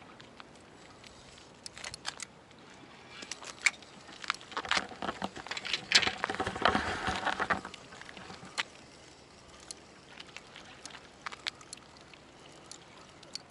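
Scattered light clicks and ticks from a spinning fishing reel being wound, with a brief rushing noise about five to seven seconds in.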